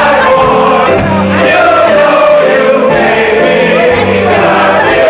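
A large group of singers on microphones singing a song together over instrumental accompaniment with a steady beat, amplified through a PA.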